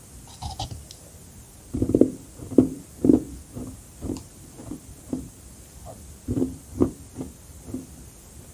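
Close-miked chewing of carbonated crushed ice: a steady run of muffled crunches, about two a second, loudest near the start and again about two-thirds of the way through.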